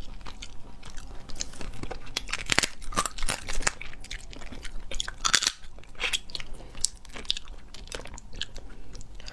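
Teeth cracking and crunching through cooked crab shell, with chewing, heard as a rapid, irregular run of sharp cracks close to a clip-on microphone.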